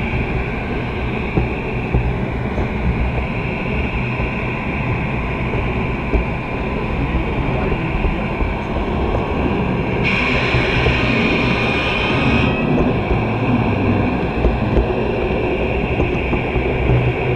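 Gauge 0 model train running along the track, heard from a camera riding on a wagon: a steady rumble of wheels on rails with a constant motor whine, and a brief hiss lasting about two seconds a little past the middle.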